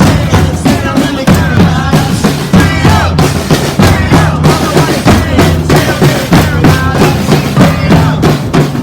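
Music with a steady drum beat and a bass line, with voices over it.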